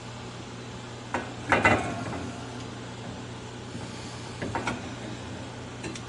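Needle-nose pliers clicking against the cold control's spade terminals and the plastic control housing as a wire terminal is worked loose. There are a few sharp clicks, the loudest about a second and a half in and a couple more later, over a steady low hum.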